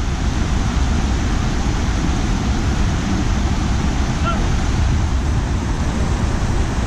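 Fast mountain stream rushing over rocks and boulders in a steady, loud roar of white water.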